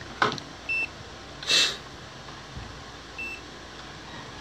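Digital multimeter giving two short high beeps about two and a half seconds apart as its dial and buttons are worked. There is a sharp click near the start and a brief rustle of handling between the beeps.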